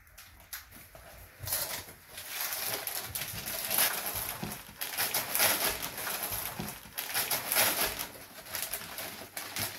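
Gift-wrapping paper and tissue paper rustling and crinkling as a wrapped book is unwrapped by hand. It starts about a second and a half in as a dense run of quick, irregular crackles.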